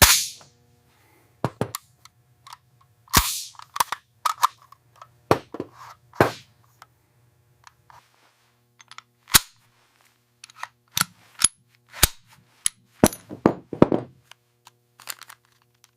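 Rifle shots fired at irregular intervals, some loud with a short ringing tail and others fainter and sharper, over a faint low hum.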